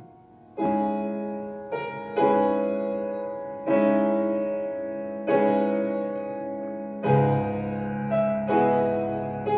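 Slow background piano music: chords struck about every one and a half seconds, each left to ring and fade over a held low note, with a deeper bass note coming in about seven seconds in.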